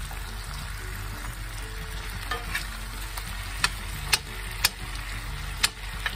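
Sliced potatoes sizzling in hot oil in a cast iron skillet as they are stirred with a metal fork. In the second half the fork clinks sharply against the iron pan several times.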